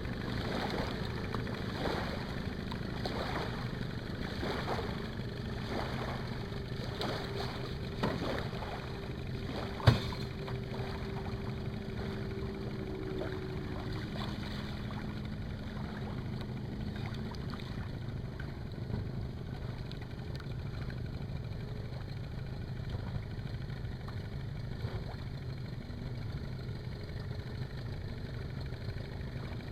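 A 25 hp Johnson two-stroke outboard motor running steadily under way on an aluminum boat. Over the first several seconds there are regular knocks, and there is one sharp, loud knock about ten seconds in.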